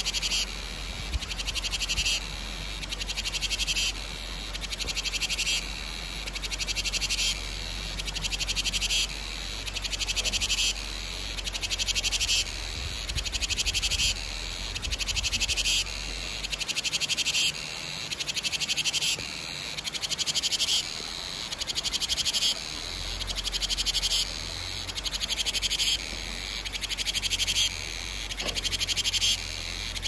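Cicadas singing: a high-pitched buzzing call that swells and drops in repeated phrases, about one every 1.7 seconds.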